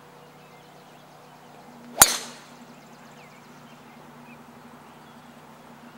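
A golf club striking a ball in a full swing: one sharp crack about two seconds in, with a brief ringing after it.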